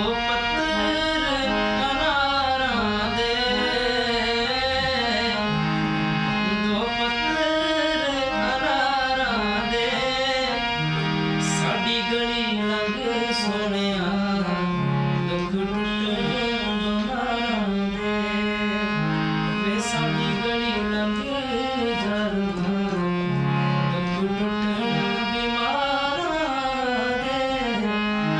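A man singing a slow, ornamented melody while playing a harmonium, its reeds holding steady notes and a drone beneath his voice.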